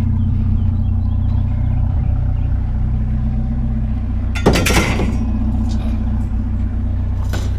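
Vehicle engine idling with a steady low hum. Metal clatters once about four and a half seconds in and again near the end, as metal scrap is handled.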